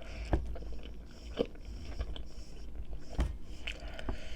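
A person chewing food with mouth sounds, close to the microphone, with a few short sharp clicks scattered through.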